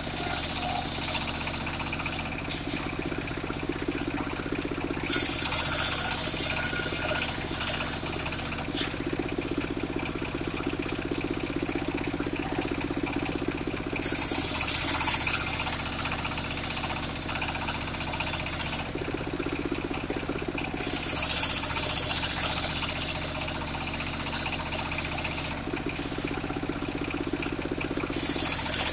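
Engine-driven circular sawmill running while sawing jackfruit wood. Over its steady hum, a loud hissing rasp of about a second and a half comes back every seven to eight seconds, four times, each following a few seconds of heavier low running.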